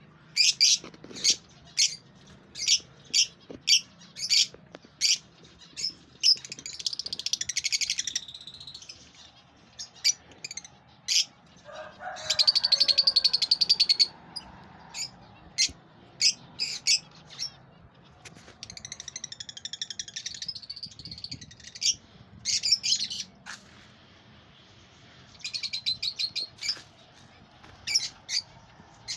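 Lovebirds chirping: sharp, high chirps repeated again and again, broken by several stretches of rapid chattering that each last a second or two, the longest and loudest about halfway through.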